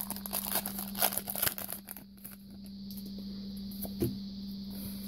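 A Pokémon TCG booster pack's wrapper being torn open and crinkled for about two seconds, then handling quietens, with a single click near the end.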